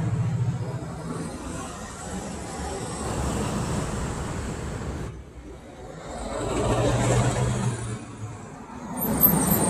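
Road traffic passing at a work zone: vehicles go by one after another, their engine hum and tyre noise swelling and fading, loudest about seven seconds in.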